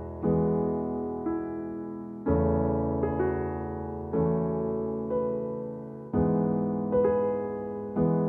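Background piano music: slow, soft chords struck about every two seconds, each ringing and fading, with lighter single notes between them.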